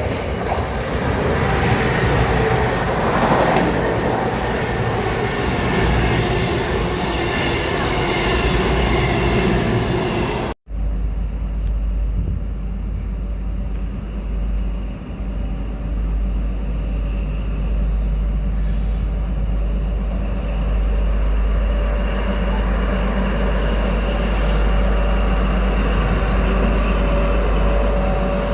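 A train running past on the rails, with some wheel squeal. About ten seconds in the sound cuts off abruptly to another train running, duller, with a deep low rumble.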